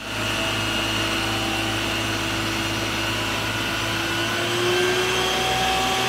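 Isuzu water tanker truck's engine-driven pump running steadily while its roof-mounted water cannon sprays a jet. It makes a steady machine hum with a high whine over a hiss of spray, getting a little louder and higher about four and a half seconds in.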